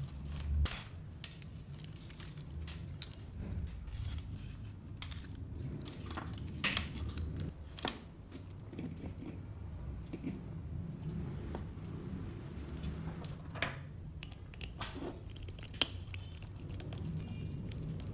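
Scattered small clicks, taps and scrapes of metal screws, nuts and a screwdriver being handled on a wooden robot-arm kit, with one sharper click near the end. A low steady hum runs underneath.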